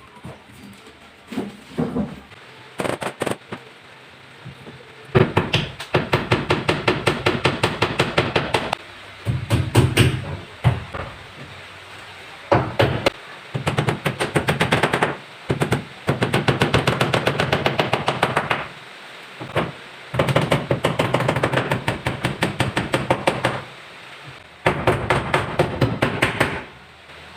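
A hand tool scraping and cutting into a GRC fibre-cement board in quick back-and-forth strokes, about seven a second, in bursts of two to four seconds with short pauses between them.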